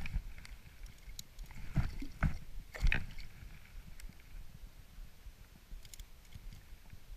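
Handling sounds as a caught pike is lifted over a float tube: a cluster of three or four knocks and rustles about two to three seconds in, then a few faint clicks over low water noise.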